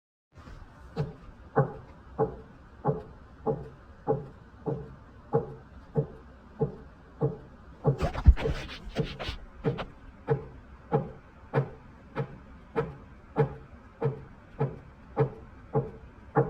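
Steady knocking, about one and a half knocks a second, heard through a voice-changer effect over a low hum. About halfway through there is a louder flurry of sharper, brighter hits.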